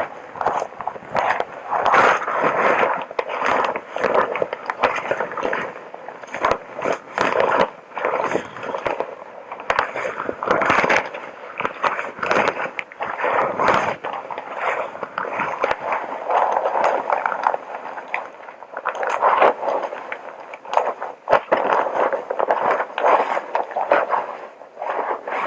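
Close-up rustling and crinkling of a hazmat suit's material, with scrapes and many small clicks, swelling and fading every second or two.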